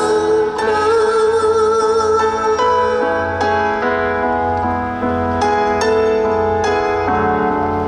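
Pop ballad played live: a singer holds a long wavering note over piano accompaniment, then the piano carries on with chords alone for the last few seconds.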